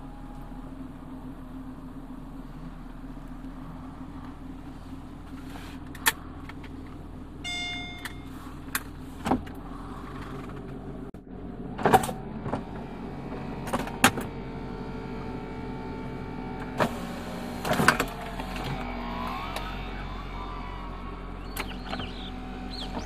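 2001 Mercedes-Benz SL500's power retractable hardtop operating: the side windows drop and an electric-hydraulic whine runs, broken by a series of sharp clunks from the roof and deck-lid latches, with a short beep early on. The engine idles steadily underneath.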